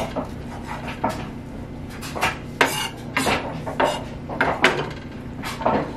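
Kitchen knife chopping cooked chicken breast on a wooden cutting board: an uneven run of sharp knocks of the blade against the board, coming several a second in the middle.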